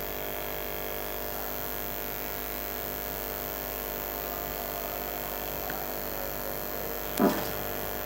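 Steady electrical hum from a Samsung top-loading washing machine's motor and drain motor wired up on the bench, running in spin mode.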